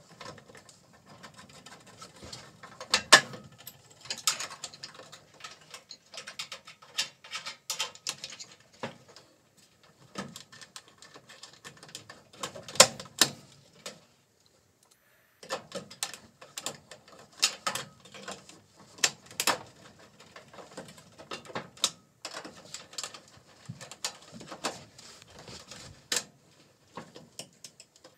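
Irregular mechanical clicking and clatter of tools and sheet-metal parts while screws are driven back into the gas range's panels during reassembly, with a short pause about halfway through.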